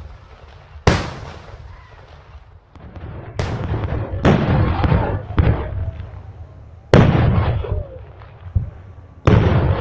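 Meriam talang, carbide-fired wooden log cannons, firing five loud booms in turn, each a sharp blast followed by a rolling echo, about a second in, twice close together in the middle, about seven seconds in and near the end.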